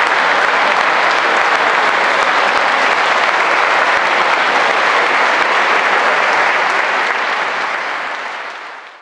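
Audience applauding, a dense, steady clapping that fades out over the last couple of seconds.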